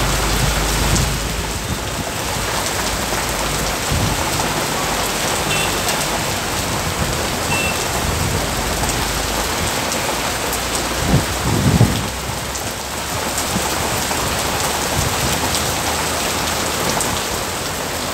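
Heavy rain falling steadily on a flooded street and parked cars. A short low rumble about eleven seconds in is the loudest moment.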